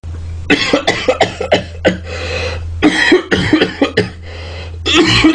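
A man coughing very loudly and harshly in rapid clusters of short hacking coughs, over a low steady hum.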